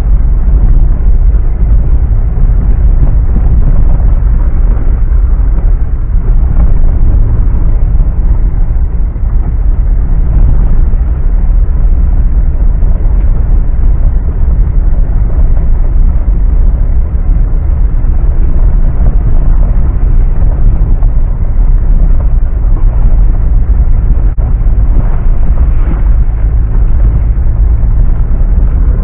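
Mitsubishi Pajero driving off-road: a loud, steady low rumble of engine and chassis.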